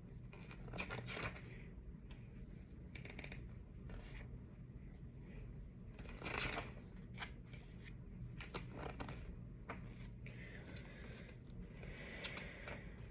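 Faint, intermittent rustling and scraping of small objects being handled, a few short bursts several seconds apart, over a low steady hum.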